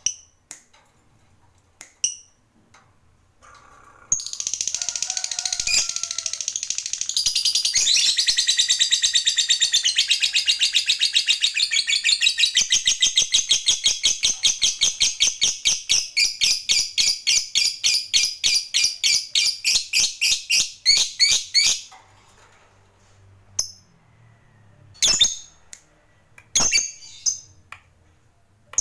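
Lovebird giving its long chattering song, the 'ngekek panjang' that hobbyists prize in fighter lovebirds: a long, unbroken run of rapid, shrill high notes lasting about eighteen seconds, which breaks into distinct pulses before it stops. Single sharp chirps come before and after it.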